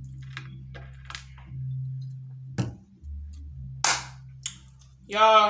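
A few sharp clacks, the loudest about four seconds in, as a glass bottle is set down on a glass-topped table, over a low steady hum. A brief vocal sound near the end.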